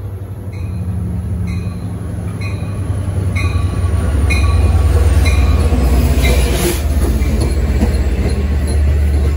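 LIRR DE30AC diesel locomotive hauling C3 bilevel coaches into the station and past close by: a deep diesel rumble that grows louder over the first half, with its bell ringing about once a second. After the locomotive passes, the coaches' wheels rumble and rattle over the rails.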